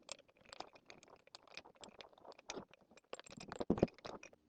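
Irregular metallic clicking and rattling of hand tools and small hardware as the saddle clamp bolt is undone and loosened, with a couple of louder knocks near the end.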